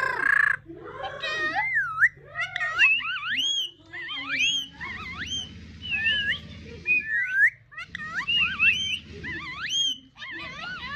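Pet parrot whistling a long run of quick notes that swoop up and down in pitch, phrase after phrase with short breaks: the bird singing.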